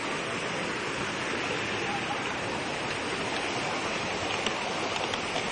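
Mountain stream cascading over rocks: a steady, even rush of water.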